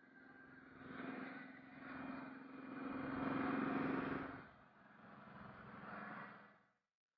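Motorcycle engine running on the road, a steady drone that swells louder through the middle and eases off again, before the sound drops out abruptly near the end.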